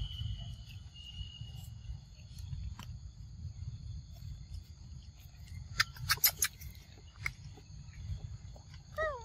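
Steady high insect drone over a low rumble, with a quick run of sharp clicks about six seconds in. Near the end comes a short falling squeak from a young monkey.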